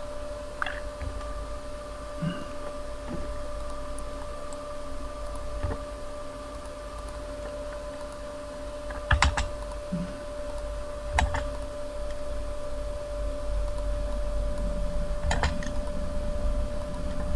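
A few scattered clicks from a computer keyboard and mouse, most of them in the second half, over a steady electrical hum with a faint whine.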